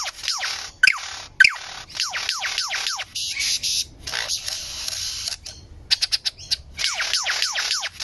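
Male superb lyrebird singing in its tail-fanned display: fast runs of falling whistled notes, about seven a second. They are broken by two loud sharp notes near the start, a harsh rasping stretch in the middle and a quick volley of clicks, before the whistles resume near the end.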